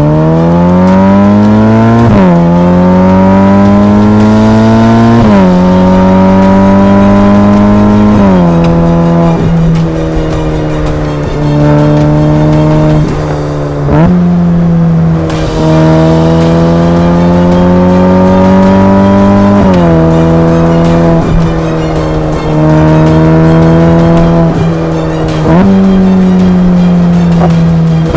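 Ferrari F8 Spider's twin-turbo V8 pulling through the gears under moderate throttle. The engine note climbs steadily in pitch and then drops sharply at each gear change, about a handful of times.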